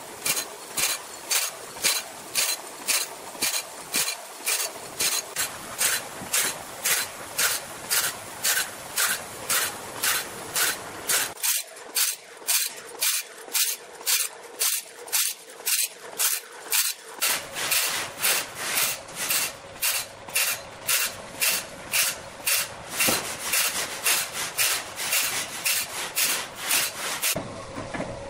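Automatic band saw blade sharpener: its abrasive grinding wheel grinds the teeth of a wide sawmill band saw blade one tooth at a time. It makes an even rasping grind, about three strokes every two seconds, as the blade is indexed forward tooth by tooth.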